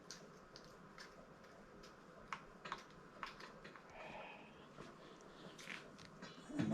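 Faint, irregular light clicks and taps of small parts being handled at a handlebar, with a brief rustle about four seconds in.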